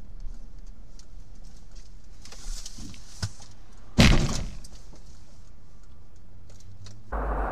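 Car collision: one loud bang about four seconds in that dies away over half a second, over a low steady rumble of engine and road. A louder, noisier rumble begins abruptly near the end.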